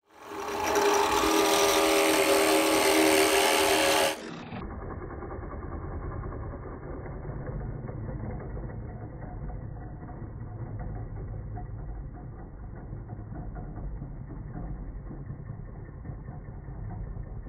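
Drill press motor running steadily as a spade bit bores into a pine 2x4. For about the first four seconds a louder sound with several steady tones covers it, then cuts off abruptly.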